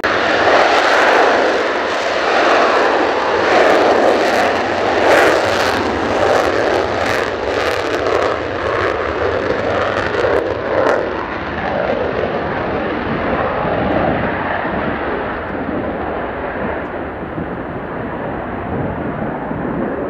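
Mitsubishi F-2's single F110 turbofan running at full afterburner on takeoff: loud jet noise with a sharp crackle through the first half, easing off and smoothing out as the jet climbs away.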